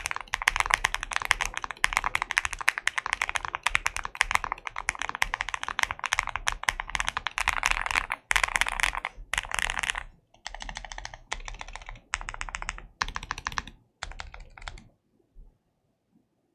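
Typing on a mechanical keyboard with linear switches: rapid, continuous keystrokes at first, then shorter bursts of keystrokes with pauses between them, stopping near the end.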